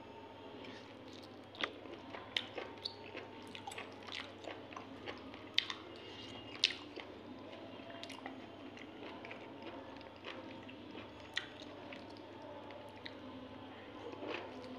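Close-up mouth sounds of a person biting and chewing chicken pota kaleji curry with rice: a run of short, sharp clicks, thickest in the first half and sparser later on.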